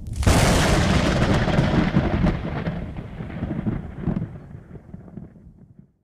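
Thunderclap: a sudden sharp crack about a quarter second in, then a rolling rumble with scattered cracks that fades over about five seconds and cuts off just before the end.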